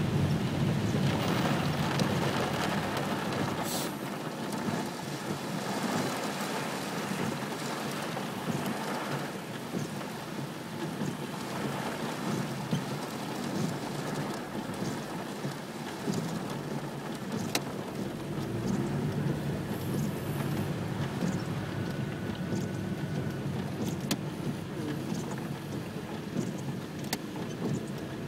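Heavy rain drumming on a car's roof and windshield, heard from inside the cabin as a steady hiss dotted with sharp drop impacts. The downpour is heaviest at first and eases somewhat over the first ten seconds or so.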